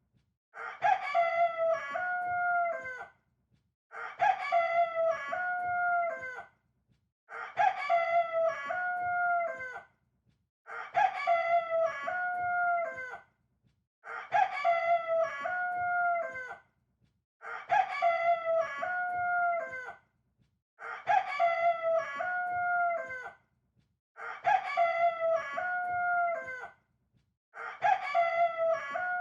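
Rooster crowing, the same cock-a-doodle-doo repeated nine times at even spacing, about every three and a half seconds, with silence between crows.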